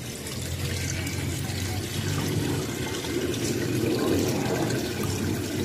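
Water from decorative faux-rock cascade fountains pouring steadily and splashing into their basins.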